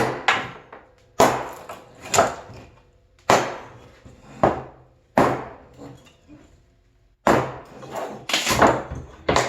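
Hatchet chopping into pallet wood to split a board in half: about nine sharp strikes, roughly one a second, with a pause of about two seconds past the middle.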